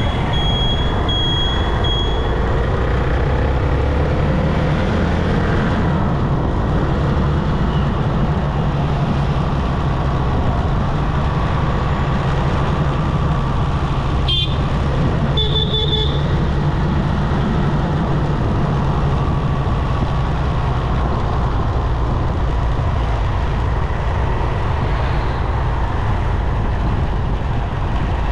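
Steady engine and wind rumble from a moving motorcycle in road traffic. A short vehicle horn toots about halfway through. A high intermittent beeping is heard over the first two seconds.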